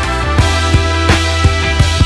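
Background music with a steady beat, drums and a constant bass line.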